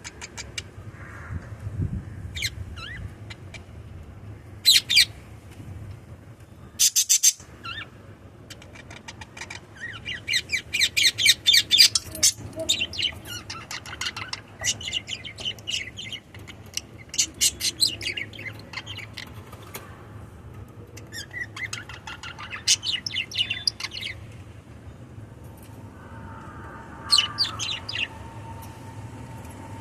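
Small pet parrots chirping and chattering in quick runs of high calls, with some sharp squawks; the densest, loudest chatter comes about a third of the way in. A low steady hum runs underneath, and a steady tone joins near the end.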